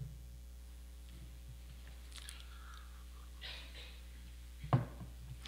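A pause in a reading: faint rustling of handheld sheets of paper over a steady low hum, and a short mouth click near the end.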